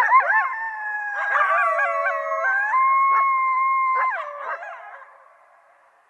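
A pack of coyotes howling together, several voices at once at different pitches: short rising calls at the start, then long held howls, breaking off with falling notes about four seconds in and fading out about a second later.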